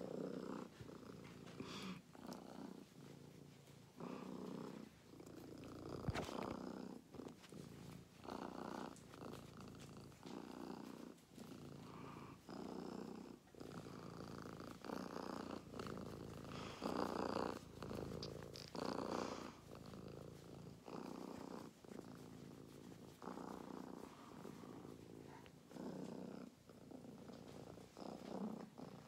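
Domestic cat purring close up, in a steady rise and fall about every second or so as it breathes in and out, with a few soft clicks and rustles.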